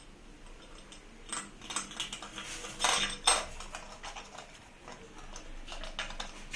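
Light metallic clinks and taps of a chrome sink drain strainer and its centre screw against the ceramic basin as the strainer is seated in the drain hole and the screw is started by hand. The two loudest clicks come close together about three seconds in.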